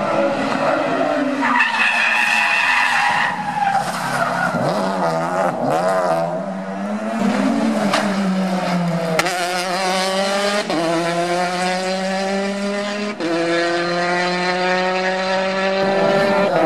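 Rally car engines at hard throttle and on the overrun, with a short tyre squeal near the start. In the second half an engine pulls up through the revs, drops at a gear change, and rises again.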